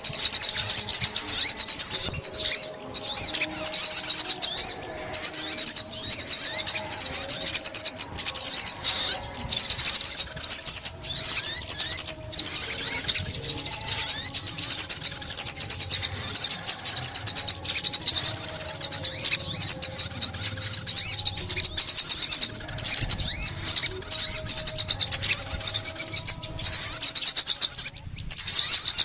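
Sunbird song: a rapid, unbroken run of high, thin chirps and trills.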